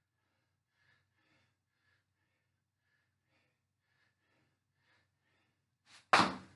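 A man's breathing during a set of bench dips, faint and rhythmic at about two breaths a second, then one loud gasping exhale near the end as he finishes the set.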